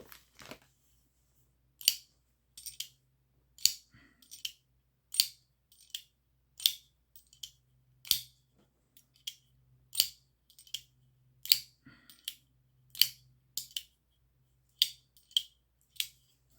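Kizer Brat button-lock folding knife being flicked open and shut over and over: a steady run of sharp metallic clicks, roughly one every half to three-quarters of a second, some coming in quick pairs.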